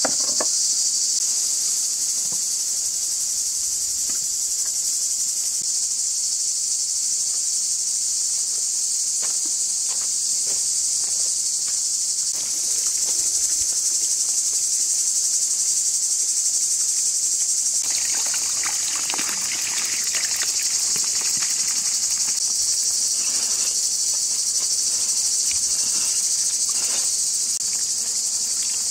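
Steady, high-pitched chorus of insects shrilling without a break. For a stretch past the middle it is joined by a run of irregular light knocks and rustles.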